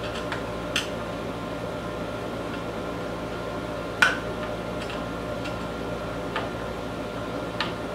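Scattered small metallic clicks and taps from a screwdriver working the chain tension screw on a chainsaw, with one sharp click about four seconds in. A steady hum runs underneath.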